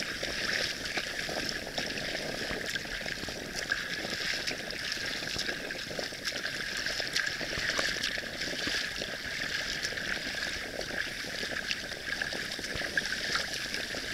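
Calm sea water lapping and trickling around a kayak, with many small splashes and drips over a steady hiss.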